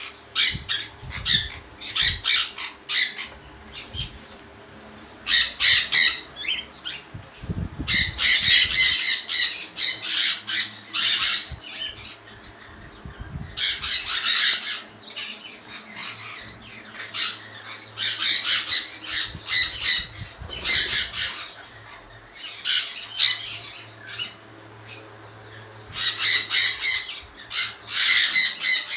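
Small parrots screeching in harsh bursts, each a second to a few seconds long, repeated over and over with short pauses between.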